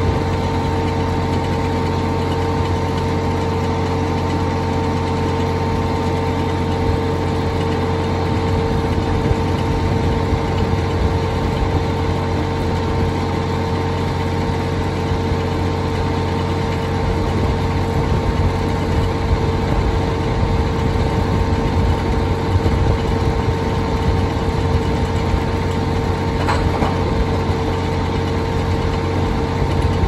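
An engine running steadily, with a constant hum held at one pitch over a low rumble.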